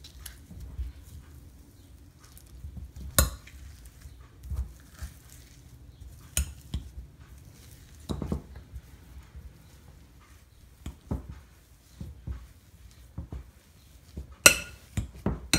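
Metal wire potato masher mashing boiled potatoes in a glass bowl: soft squashing with irregular sharp clinks of the masher against the glass, the loudest about three seconds in and near the end.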